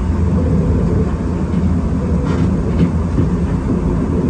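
Enoden electric train running along the track, a steady low rumble of wheels and running gear heard from the front of the car, with a couple of light clicks a little past halfway.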